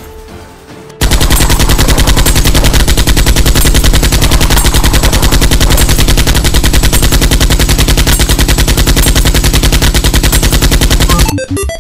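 Sustained rapid automatic gunfire, one unbroken stream of evenly spaced shots. It starts about a second in and cuts off abruptly near the end.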